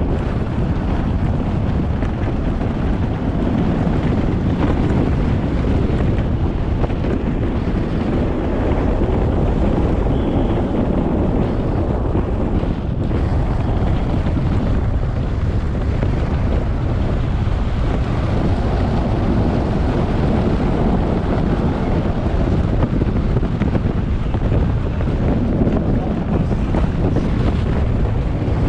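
Rushing wind buffeting the microphone and the rumble of a soapbox racer's wheels rolling fast downhill on asphalt. There is no engine, and the noise stays steady throughout.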